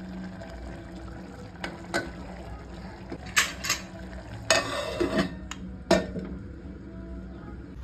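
Aluminium pressure cooker being handled and its lid put on and locked: scattered metal clinks, then a longer clattering scrape about halfway through and a last clink, over a low steady hum.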